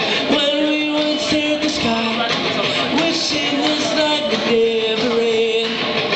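Acoustic guitar strummed while a voice sings long held notes, live through one microphone.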